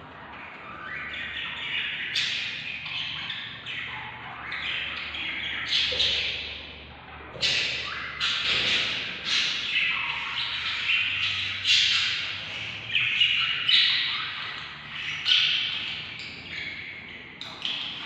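Budgerigar chicks chirping and squawking in a rapid, scratchy string of calls. The calls grow louder about two seconds in, with louder squawks every second or two after that.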